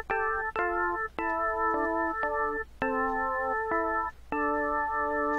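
ZynAddSubFX software synthesizer playing a series of keyboard chords, about eight in a row, each struck sharply and held until the next.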